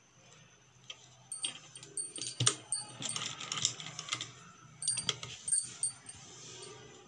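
Irregular metallic clicks and crinkly rustling as scissors and pom-pom lace are handled at a sewing machine, starting about a second in and dying down near the end. A faint steady low hum sits underneath.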